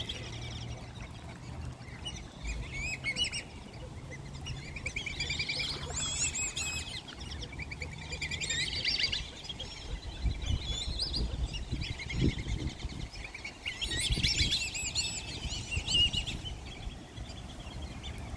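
A flock of ducks calling, led by whistling ducks giving clusters of high, wavering whistled calls again and again.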